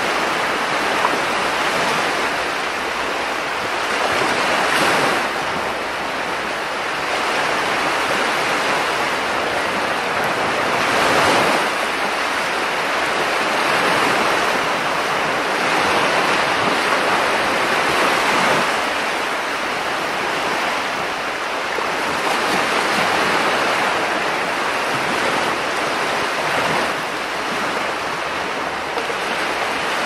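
Small ocean waves breaking continuously onto the shore, a steady wash of surf that swells and eases every few seconds.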